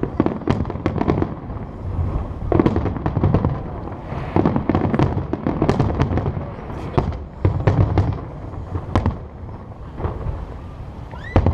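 Aerial fireworks going off in rapid clusters: dense runs of bangs and crackles with deeper booms. They thin out near the end, and one sharp bang comes just before the end.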